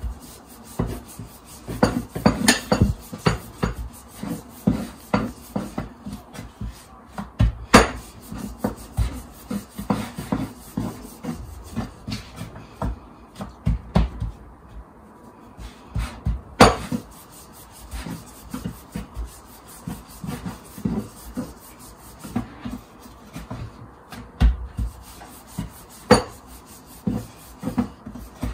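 Wooden rolling pin rolling naan dough on a wooden board: uneven back-and-forth rubbing strokes and soft knocks of wood on wood, with a few sharper knocks spread through.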